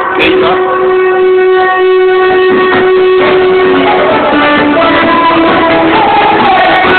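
Loud music playing, with one long held note over the first four seconds before the melody moves on.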